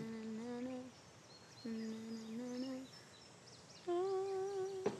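A slow tune hummed in three long held notes, each about a second, with faint bird chirps in the background.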